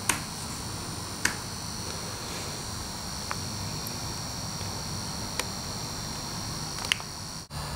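Room tone with a steady high-pitched electronic whine over a low hum, broken by four short faint clicks. It cuts out suddenly for an instant near the end.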